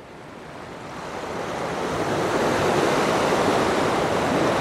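Ocean surf surging and foaming against coastal rocks, a steady rush of breaking water that swells in the first couple of seconds and then holds.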